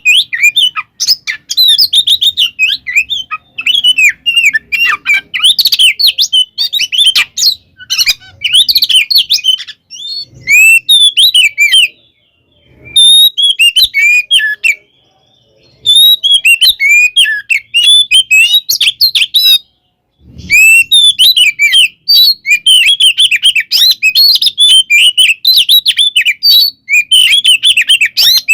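Oriental magpie-robin (kacer) singing a fast, varied, non-stop song of chirps and whistles: the agitated 'fighting' song. The song breaks off briefly three times, about twelve, fifteen and twenty seconds in.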